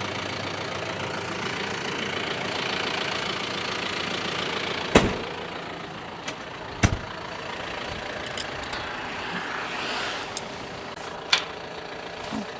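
A vehicle engine idling steadily, with a few sharp clicks and knocks over it, the loudest about five seconds in and another about two seconds later.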